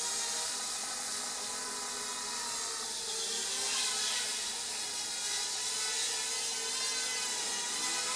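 Small FPV racing quadcopter's motors and propellers whining as it flies low past the camera, a steady buzz made of several tones, its pitch shifting about three seconds in.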